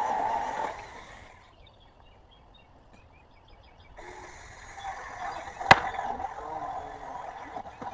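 Battery-powered mini chainsaw with a 4-inch bar cutting into a pine trunk, its motor whine wavering under load. The saw falls quiet about a second in, leaving faint high chirps, then runs again from about four seconds in, with a single sharp snap near six seconds.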